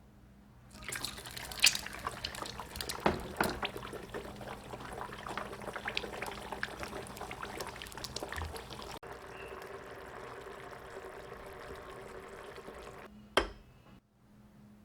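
Running water splashing, with many small knocks and splashes, then a steadier stream from about nine seconds that stops near the end with a sharp knock.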